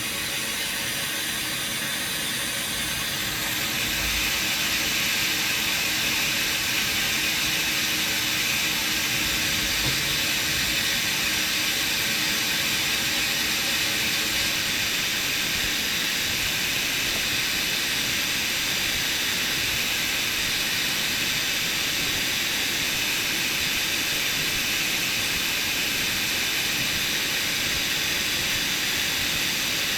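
DN Solutions SVM-4100 CNC vertical machining centre running an automatic probe-calibration cycle, heard as a steady machine hiss that grows a little louder about four seconds in and then holds.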